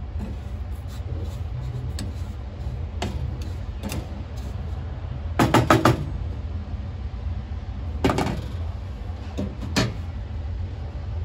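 Wooden spatula stirring and scraping damp salt crystals in an aluminium saucepan, with scattered clicks and taps of wood on metal over a steady low hum. A quick run of several taps comes about halfway through, and a few more come near the end.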